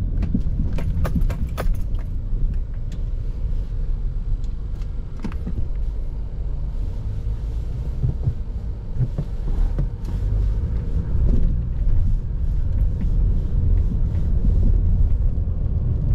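Steady low rumble of a car's engine and road noise heard from inside the cabin, with a few light clicks about a second in.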